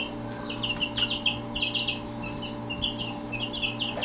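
A brood of young gamefowl chicks peeping continuously, many short high cheeps in quick succession, over a steady low hum.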